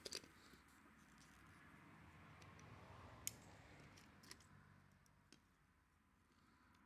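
Near silence broken by a few faint metallic clicks and taps as an arc welder's spring ground clamp and a circuit breaker are handled. The sharpest click comes a little past three seconds in.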